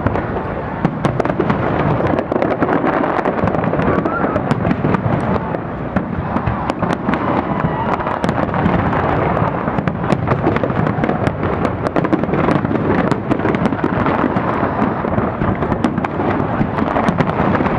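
Fireworks display: a dense, continuous run of shells bursting, with sharp cracks and pops several a second over a steady rumble.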